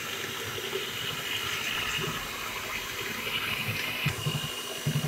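Electric hand mixer running, its beaters churning thin, runny cake batter with a steady whir and slosh, while melted margarine is poured in.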